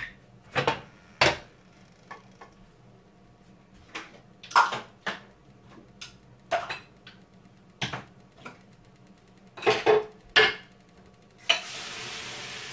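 A metal pan knocking and clanking against the stove and other cookware as it is handled: about ten sharp knocks. Near the end, a steady sizzling hiss starts from the hot, burnt potassium nitrate smoke-bomb mixture.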